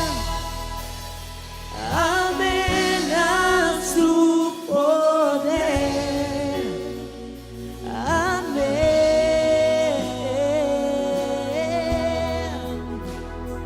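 Worship music: a voice singing long, wavering notes over a sustained backing, with the bass dropping out briefly about four seconds in.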